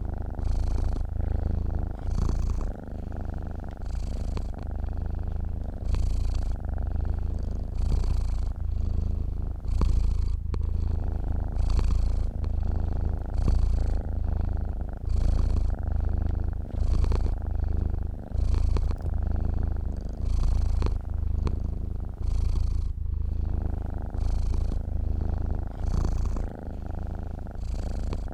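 A sleeping domestic cat purring: a steady low rumble that swells and eases with each breath, roughly once a second.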